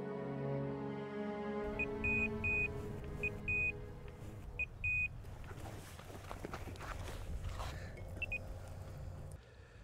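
Electronic carp bite alarm beeping in an irregular series of short high tones, the sign of a fish taking line from the rod, with a couple more beeps about eight seconds in. Background music fades out in the first two seconds.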